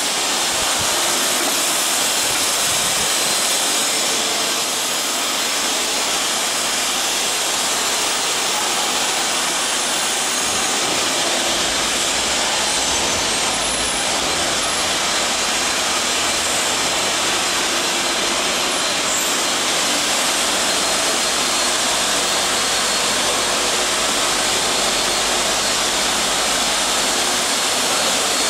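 Steady, even rushing noise of a machinery workshop, with no distinct knocks, rhythm or pitch.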